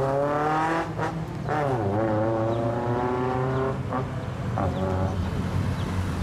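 Car engine and exhaust revving: the pitch climbs, drops back about one and a half seconds in and climbs again. Two short throttle blips come near the end, over the steady low drone of another running engine.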